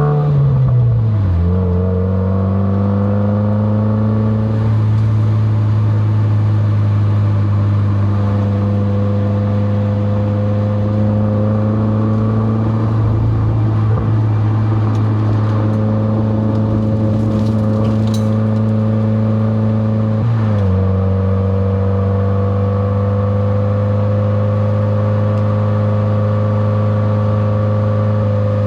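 Subaru WRX's turbocharged flat-four engine running at a steady cruise. Its note drops about a second in and dips briefly again about two-thirds of the way through.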